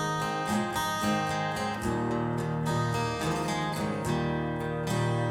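Recorded music played through Elfton Elevator loudspeakers: an instrumental guitar passage with strummed guitar under sustained notes, no singing.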